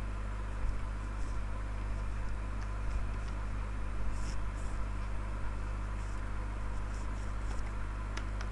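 Faint, scattered computer keyboard keystroke clicks over a steady low hum and hiss.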